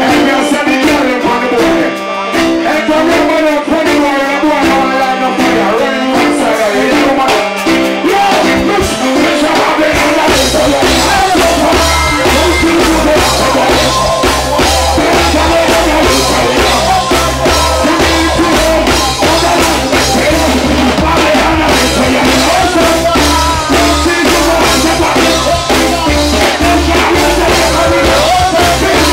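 Live reggae band playing loudly behind a male vocalist singing into a microphone. The bass and drums come in strongly about ten seconds in.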